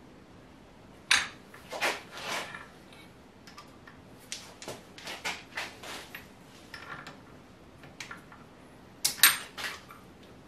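Steel milling clamp parts (step blocks, strap clamps and studs) clinking and clanking as they are set down and shifted on a milling machine's T-slot table. It is a string of separate metal knocks, with the loudest pair near the end.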